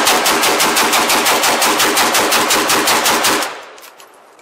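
PSA AK-P GF3 AK-47 pistol in 7.62x39 fired as fast as the trigger can be pulled, a loud, even string of about nine shots a second for over three seconds. It then stops and the echo dies away.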